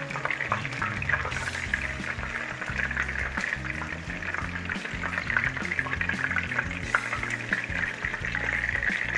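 Chicken pieces frying in a pot of hot oil: a dense, steady crackling sizzle with scattered sharper pops. Background music with a bass line plays underneath.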